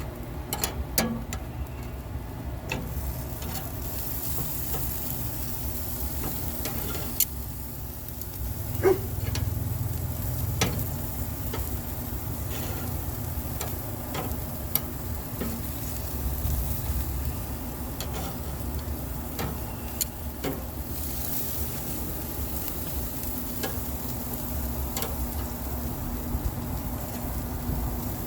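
Chicken and pork steaks sizzling on a grill, with scattered pops and crackles of fat over a steady low rumble.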